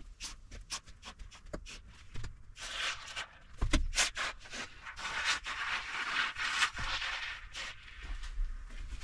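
Expanding foam spraying from a can through its straw nozzle into gaps around ceiling insulation: short spluttering spurts at first, then a longer sputtering hiss from about three seconds in, with one louder knock partway through.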